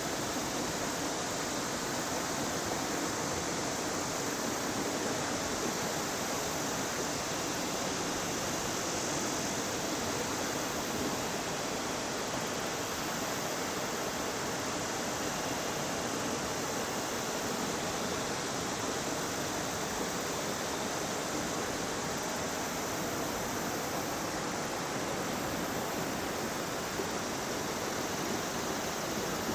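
River water rushing steadily over rocks, an even, unbroken roar.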